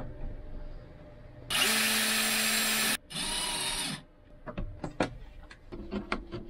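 DeWalt cordless drill spinning up and running in two bursts, about a second and a half and then about a second long, its pitch falling away as the second one stops. A scatter of light clicks and taps follows.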